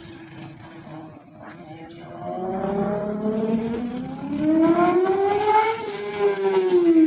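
Yamaha FZ250 single-cylinder motorcycle with an SC Project CRT mesh exhaust riding past. The engine note climbs in pitch and grows louder as it approaches, then drops in pitch as it passes about six seconds in.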